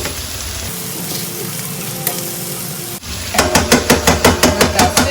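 Chicken pieces frying in a pan with a steady sizzle. About three seconds in, a quick, even run of metallic knocks starts, about six a second, as a utensil is worked against the pan.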